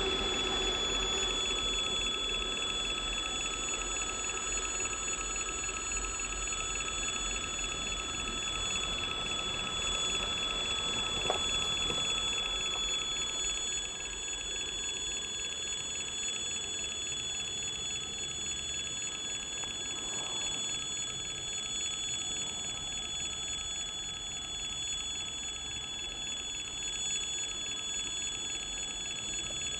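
Level-crossing warning bell ringing continuously, a steady ring at a few fixed pitches; a short click about eleven seconds in.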